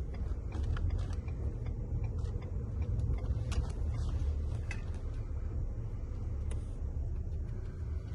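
Low, steady rumble of a Ford car driving, heard inside the cabin, with scattered light clicks and creaks at irregular moments.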